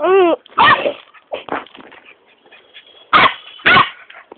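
A dog yelping and barking in short, sharp calls: one pitched yelp at the start, a few quick barks about a second in, and two louder barks near the end.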